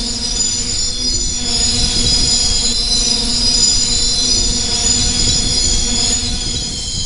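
Freight train of hopper cars rolling past, its steel wheels squealing against the rails in several steady high pitches over a low rumble.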